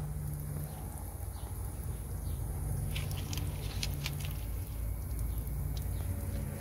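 Water from adjustable drippers on a pressurised drip-irrigation line spraying and pattering onto a wooden deck, with a cluster of sharper drop ticks about three to four seconds in. A low hum runs underneath.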